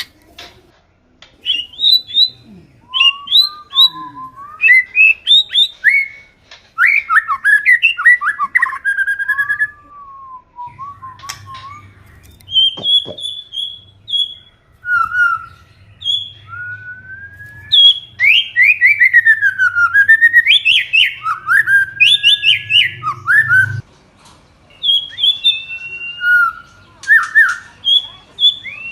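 White-rumped shama singing: loud, varied whistled phrases of sliding notes and quick runs, delivered in bouts with short pauses between them.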